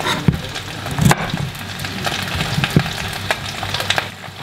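Knife cutting cauliflower into florets on a wooden chopping board, with a few sharp taps of the blade on the board, over a steady crackling sizzle.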